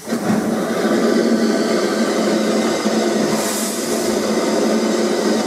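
Maunsell S15 steam locomotive No. 847 letting off a steady rush of steam with a low hum under it, starting abruptly and holding even.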